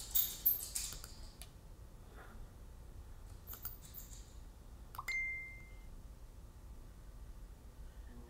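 Light clicks and small taps from handling at a computer desk, likely a mouse. There is a cluster at the start and a few more at about three and a half seconds. At about five seconds a single click is followed by a short steady beep lasting under a second.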